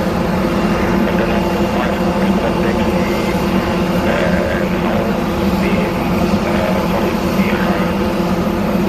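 Jet airliner engines running with a steady hum, holding one pitch throughout.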